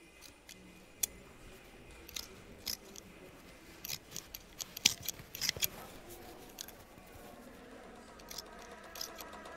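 Scissors snipping in an irregular run of short, sharp cuts, coming thickest and loudest about halfway through.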